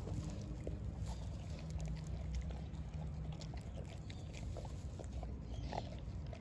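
A Staffordshire Bull Terrier chewing and licking at a chew toy stuffed with mincemeat, working the meat out: many small irregular clicks and wet chewing noises over a low rumble.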